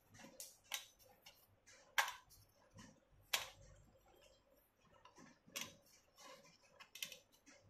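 Scattered light clicks and taps, about six spread over several seconds, as raw cut pieces of dough are handled and laid onto a steel plate.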